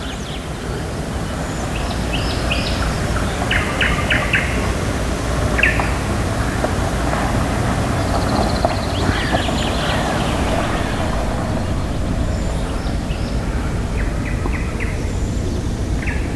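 Birds chirping and trilling now and then over a steady low rumble of outdoor noise.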